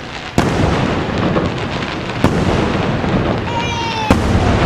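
Aerial fireworks shells bursting overhead: three sharp bangs roughly two seconds apart over continuous crackling and rumbling, with a brief, slightly falling whistle just before the last bang.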